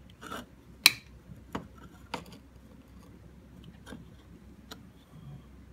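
Small serrated jeweler's snips cutting a strip of 10 karat yellow gold solder into pallions. Several sharp snips a second or so apart, the loudest about a second in.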